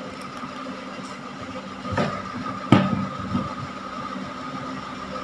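A plastic action figure being handled on a wooden table: a few sharp clicks and knocks about two to three seconds in, over a steady background hum.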